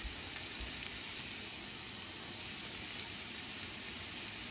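Potatoes frying in oil in a skillet: a steady sizzle with a few small pops.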